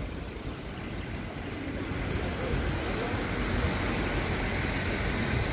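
Steady rushing outdoor street noise with no distinct events, growing louder about two seconds in.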